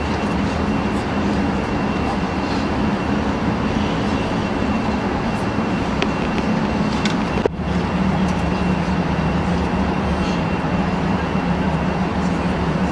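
Steady cabin noise of an Airbus A380 in flight, heard from a window seat: a constant rush of air and engines with a low hum underneath. A single short click about halfway through.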